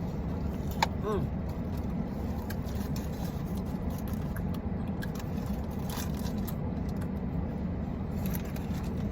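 Steady low rumble of an idling car engine, with a single sharp click about a second in.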